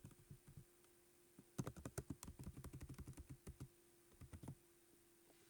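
Typing on a keyboard: a quick run of key clicks lasting about three seconds, starting a second and a half in, after a few scattered clicks.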